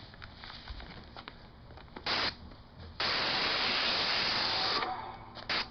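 Airless paint spray gun (Titan 440i sprayer, RAC X 310 fine-finish tip) hissing as paint is sprayed onto a downspout: a short trigger pull about two seconds in, then one sustained spray lasting nearly two seconds, and a brief burst near the end.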